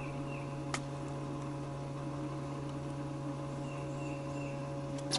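Steady electric motor hum from the boat, with faint bird chirps repeating and two sharp clicks, one about a second in and one at the very end.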